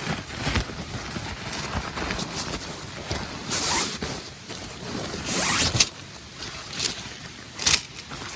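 A zipper being pulled in a few quick strokes, the longest about half a second, amid rustling handling of fabric or gear.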